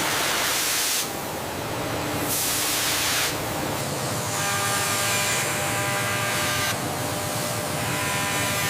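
Machine noise: two bursts of hissing, each about a second long, one at the start and one a little after two seconds in, over a steady drone; about halfway through, a humming tone with several pitches joins for about two seconds.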